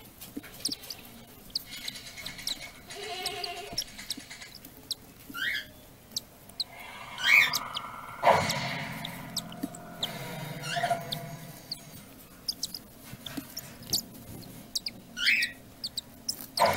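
Newborn cockatiel chicks peeping: short, rising cheeps every second or two, with small clicks and rustles in the nest. A louder thump comes about eight seconds in, followed by a low hum for a few seconds.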